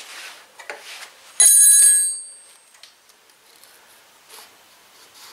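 A few light clicks of hand tools, then a metal wrench strikes metal and gives one loud, high, bell-like ring that holds for about half a second and dies away. Faint tool clicks follow.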